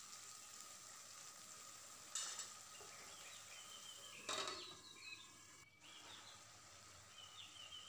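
Wet tomato, chilli and garlic paste with potatoes sizzling softly in a steel kadai as a ladle stirs it. Just after four seconds a steel lid knocks down onto the pan.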